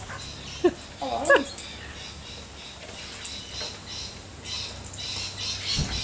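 Birds calling: a couple of short calls about a second in, then a run of rapid high chirps over the last second and a half.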